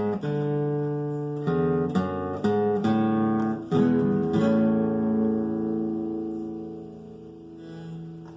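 Viola caipira strummed in a waltz rhythm in A major, playing the hymn's closing chords; about four and a half seconds in, the last chord is left to ring and fades away slowly.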